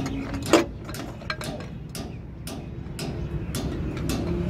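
Irregular metallic clicks and taps as a spin-on diesel fuel filter canister is handled and threaded onto its filter head, the sharpest about half a second in, over a steady low hum.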